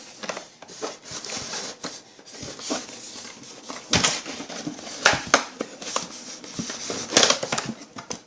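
Hands handling toy packaging in a box, styrofoam among it: continual rustling and scraping with irregular clicks and a few sharper knocks, the loudest about four, five and seven seconds in.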